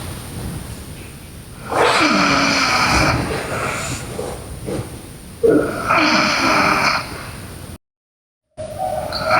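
A sleeping girl snoring: two long snores, one about two seconds in and one about five and a half seconds in, each starting with a falling low pitch, with quieter breathing between. The sound drops out to dead silence for under a second near the end.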